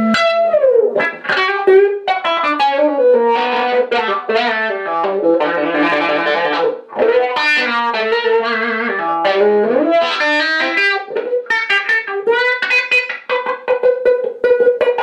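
PRS electric guitar played through a 1970s DeArmond 1802 Weeper wah pedal into a small amp, with the foot on the pedal's treadle. It opens with a note sliding down, runs quickly through lead lines, and ends on a long held note.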